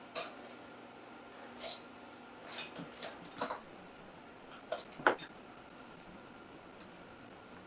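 Scattered light metallic clicks and clinks from hand tools, a 12mm socket or wrench working on the motorcycle's lower fork clamp bolts, with small clusters about two and a half, three and a half and five seconds in.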